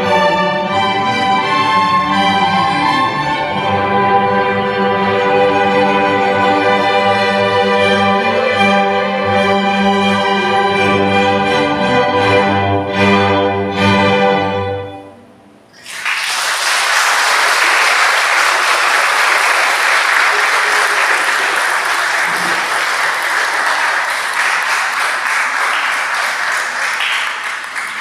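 Double bass solo with string orchestra playing the closing bars of the movement, ending on a few short chords about fourteen seconds in. Then audience applause, steady until it begins to thin out near the end.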